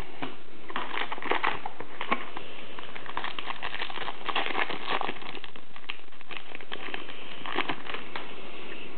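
Basketball trading cards being handled and shuffled by hand: an irregular run of soft rustles and light clicks as cards slide over one another.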